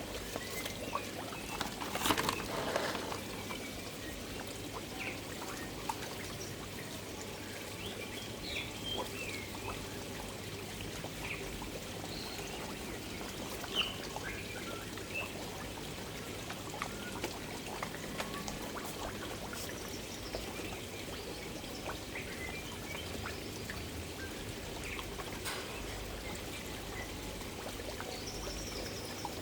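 Water pouring and trickling steadily into a koi pond, with scattered small splashes and clicks of koi feeding at the surface. A louder splash comes about two seconds in.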